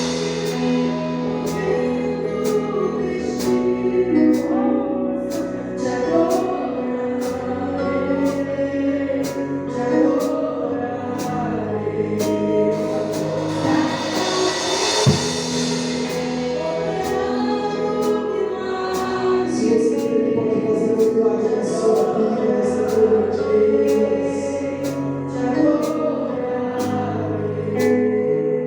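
Gospel worship song: a choir singing sustained lines over instrumental accompaniment, with a light, regular percussion tick.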